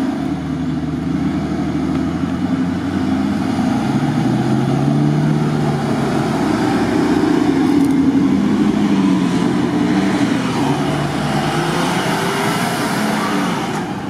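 Jeep Grand Cherokee WJ's engine pulling it through mud as it drives past close by, the engine note rising and falling with the throttle over tyre and mud noise.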